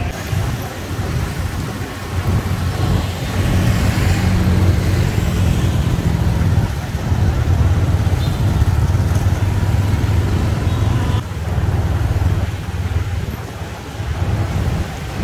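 Dense street traffic of motorbikes, scooters and cars moving slowly: a steady low engine hum with haze from tyres and passing vehicles.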